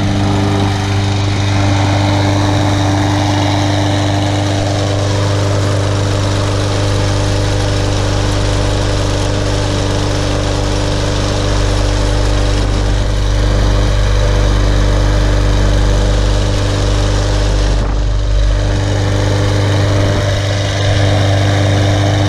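Briggs & Stratton 625EX Series 150cc single-cylinder engine of an all-wheel-drive Husqvarna walk-behind lawn mower running steadily.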